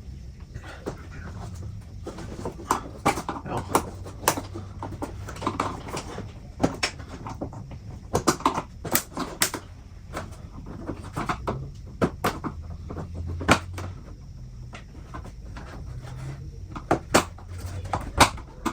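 Irregular sharp plastic clicks, snaps and knocks of trim inserts on a Chevy Silverado SS grille and bumper being popped out and pressed into place by hand, with a few louder snaps near the end.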